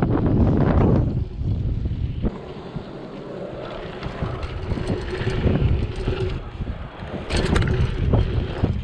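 Wind buffeting an action camera's microphone as a dirt-jump bike rolls, with tyre noise over asphalt and then dirt. Loudest at the start, it eases off briefly and builds again. A few sharp clatters of the bike come about seven seconds in.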